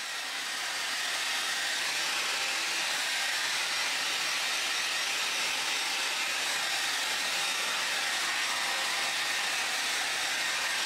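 Shower running: a steady, even hiss of water spray with no change in level.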